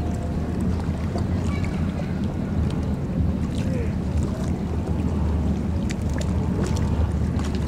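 Boat engines rumbling steadily, a low continuous drone with some wind on the microphone.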